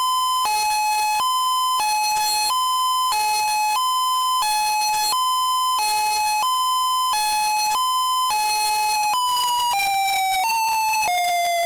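Girl 16R siren in its alternate mode: a harsh, buzzy two-tone hi-lo signal switching between a higher and a lower pitch about every two-thirds of a second. About nine seconds in it changes to the alternate wail, where each tone slides downward as the pair steps lower.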